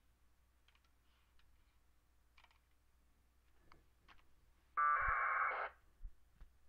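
A single burst of packet-radio data tones from the VHF radio's speaker, a harsh warbling buzz just under a second long, about five seconds in. It is a 1200-baud AFSK packet coming back through the ISS digipeater, and the terminal decodes it as the operator's own position report.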